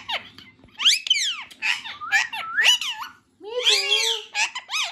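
Indian ringneck parakeet chattering in quick, high-pitched phrases that glide up and down in pitch, with a short pause about three seconds in.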